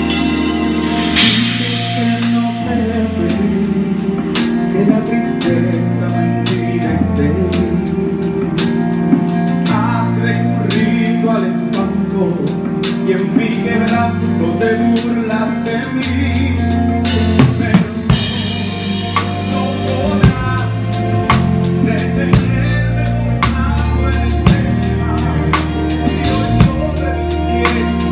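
Live band rehearsing a song: a drum kit keeping a steady beat with cymbal and snare hits over a bass guitar line, with electric guitar and keyboard filling in.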